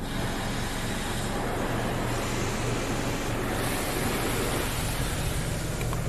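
Automatic car wash spraying pre-soak onto the car, heard from inside the cabin as a steady hiss of spray on the glass and body over a low machine hum.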